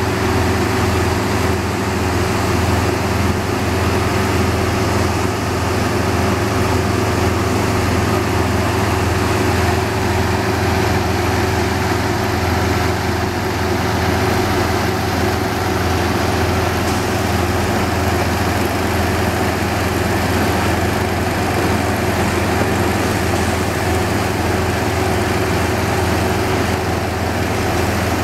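Heavy diesel concrete-placing machinery, a concrete pump truck among it, running steadily: an even engine drone with a steady hum, unchanging throughout.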